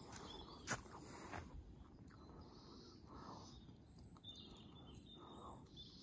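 Quiet forest ambience: scattered footsteps on the forest floor, with one sharp snap under a second in as the loudest sound, over faint bird calls.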